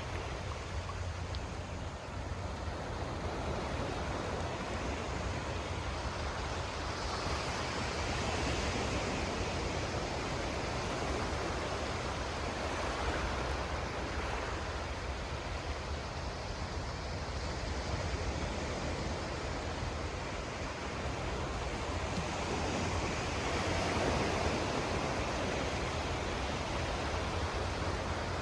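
Sea surf washing in: a steady rushing hiss that swells every several seconds, over a low rumble.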